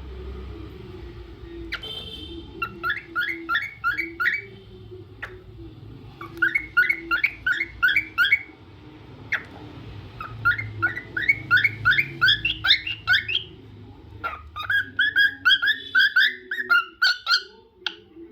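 Cockatiel singing: four bouts of quick, rising whistled chirps, several a second, with short pauses between the bouts.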